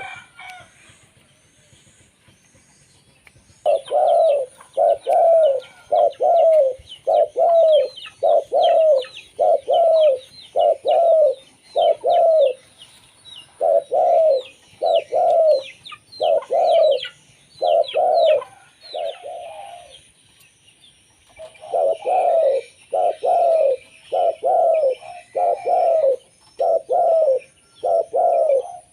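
Local perkutut (zebra dove) cooing: a long series of short, evenly repeated coo notes, a little over one a second, in three runs broken by brief pauses. Fainter high chirps run over the first two runs.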